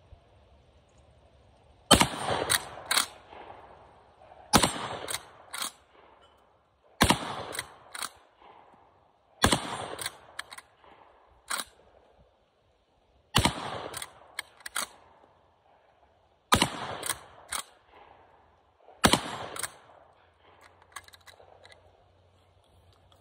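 Cimarron 1887 lever-action 12-gauge shotgun fired seven times, a shot every two and a half to four seconds. Each shot is followed by two or three sharp clacks as the lever is worked to throw out the empty hull and feed the next shell.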